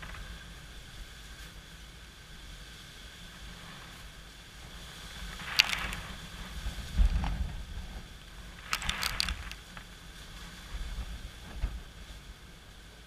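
Gusty wind and rain as Hurricane Irma approaches: a steady hiss, with stronger gusts from about the middle on that buffet the microphone in low rumbles and bring two brief rushes of high hissing and crackling.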